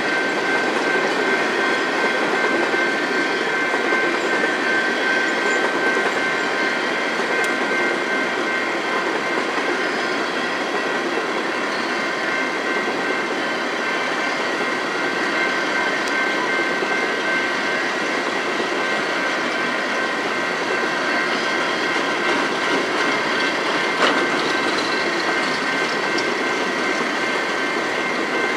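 Coal hopper cars of a long freight train rolling steadily past over a grade crossing: a continuous rumble and rattle of wheels on rail, with a steady high-pitched tone over it and a single sharp click near the end.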